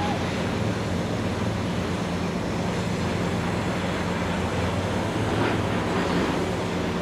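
Steady outdoor harbour noise: a low mechanical hum under an even rushing noise, with no single event standing out.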